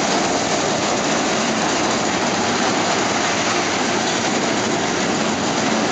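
Roller coaster train running along its steel track: a steady, loud rushing rumble.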